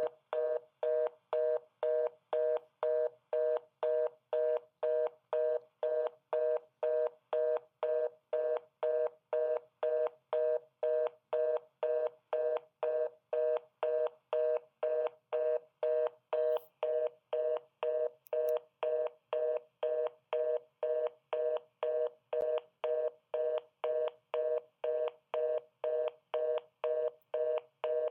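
Telephone fast busy (reorder) signal: two tones sounded together, pulsing on and off evenly about twice a second, the signal that a call cannot be put through.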